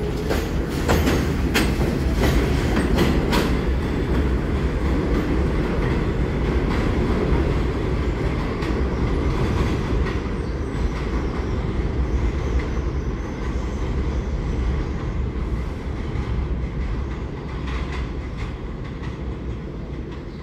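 R46 subway train pulling away on elevated track: a run of wheel clicks over the rail joints in the first few seconds as the last car passes, over a steady rumble that slowly fades as the train moves off into the distance.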